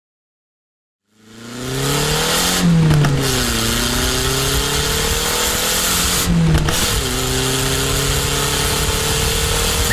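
A vehicle engine fades in from silence and accelerates through the gears. Its pitch climbs slowly, then drops sharply at two gear changes, about a third and two-thirds of the way through, each with a brief break in the sound, and it goes on climbing after each shift.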